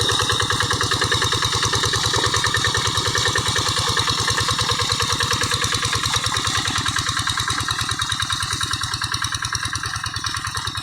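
Single-cylinder diesel engine of a Quick G1000 hand tractor running steadily with an even, rapid beat, growing slightly quieter near the end.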